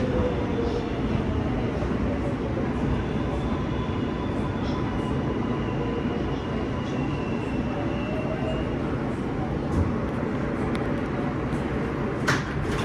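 New York City subway L train car running on the rails: a steady rumble and hiss of wheels on track, with faint high whines coming and going and scattered small clicks. One sharp click comes a little before the end.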